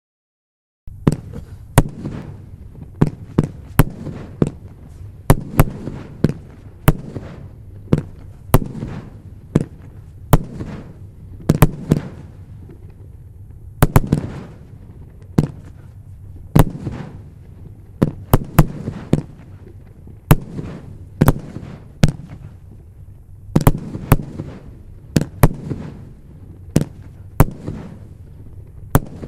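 Excellent Fireworks 'Lightning' consumer fireworks cake firing shot after shot: sharp bangs, about one to two a second, starting about a second in, with a rumble between the reports.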